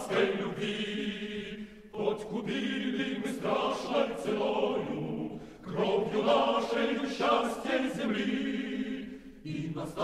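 A choir singing, in phrases that break off every three to four seconds.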